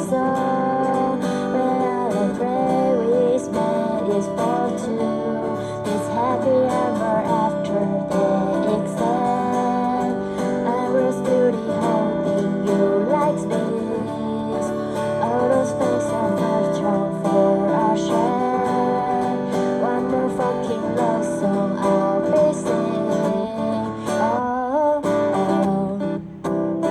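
Acoustic guitar playing an instrumental passage: a plucked melody over strummed chords, with no singing.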